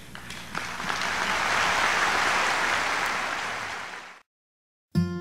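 Large audience applauding, swelling to full strength within about a second and then fading away before cutting off abruptly. A plucked guitar tune starts right at the end.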